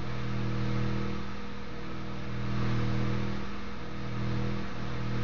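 Electric metal melter running during a silver pour: a steady low electrical hum with several buzzing tones over a rushing noise, swelling and easing slightly in level.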